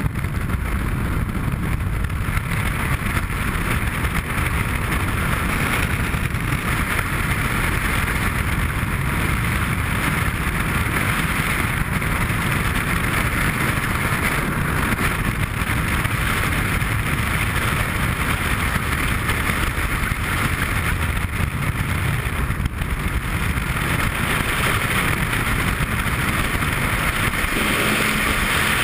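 Steady rush of freefall wind buffeting a body-mounted camera's microphone during a skydive.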